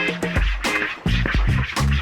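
Background music with a steady beat, deep bass notes and record-scratch-like sounds.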